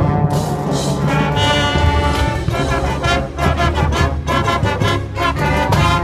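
High school marching band playing loud brass chords over bass drums, with a steady beat of percussion hits in the second half.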